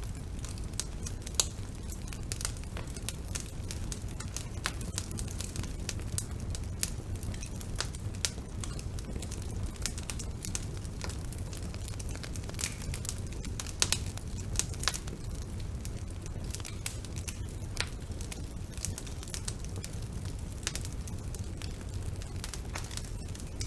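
Wood fire in a fireplace crackling: frequent sharp pops and snaps over a low, steady rumble of the flames. The loudest pops come about a second and a half in and as a pair near the middle.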